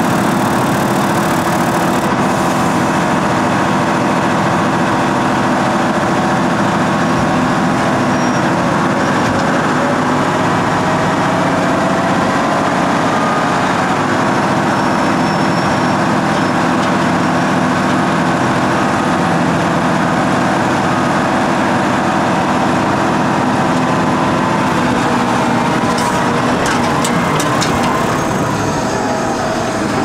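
Heavy diesel engine of a Volvo L150H wheel loader running steadily under load, with a few short clicks near the end.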